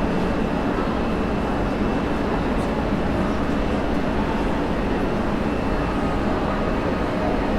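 A train running steadily, a dense low rumble with no breaks. A faint thin whine comes in near the end.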